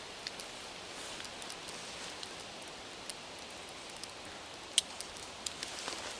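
Small kindling fire of fatwood and birch bark catching in a fire pit: a few sharp crackles over a steady soft hiss, the loudest crack about five seconds in.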